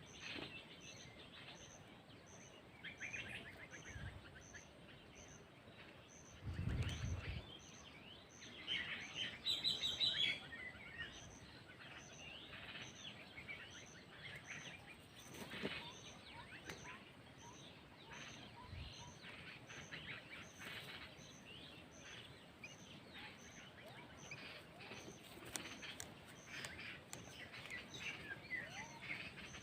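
Several birds chirping and calling, with a burst of louder calls about ten seconds in. A brief low rumble comes about seven seconds in, and a faint high tick repeats about once a second.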